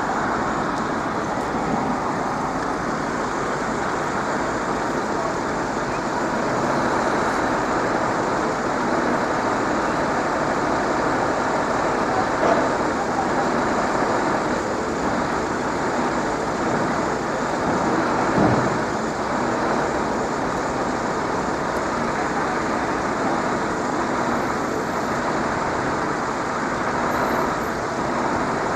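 Steady rush of road traffic noise, with two brief knocks partway through.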